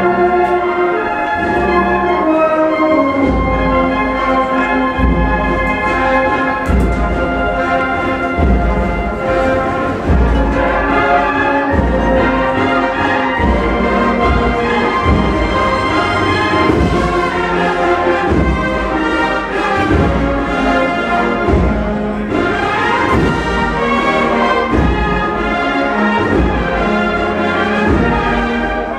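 Brass band playing a Holy Week processional march: sustained brass chords over a steady drum beat of about one stroke a second.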